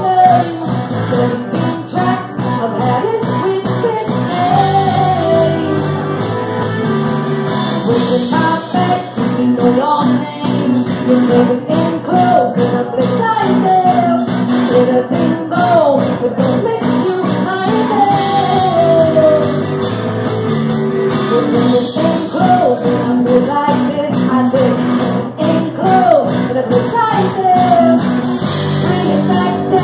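Live rock band playing: a woman sings lead over bass guitar, electric guitar and drums.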